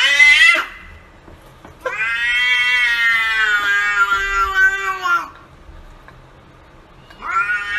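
Domestic cat meowing: a short rising call at the start, one long drawn-out yowl of about three seconds, then another short rising meow near the end.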